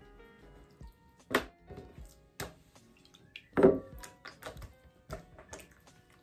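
Hands folding and pressing oiled dough on a wooden table: a few short wet taps and one louder slap about three and a half seconds in, over quiet background music.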